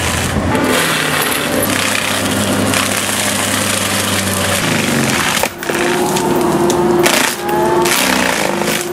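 Torrent excavator-mounted forestry mulcher's spinning cutter drum shredding brush and small trees: a loud, steady grinding of wood with splintering cracks over a low machine hum. It breaks off briefly about halfway, then goes on with a steady whine in it.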